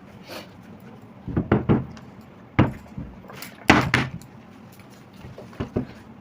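Plastic bottle being flipped and landing on the floor: several short knocks, a cluster about a second and a half in, one more a second later, and a louder pair near four seconds.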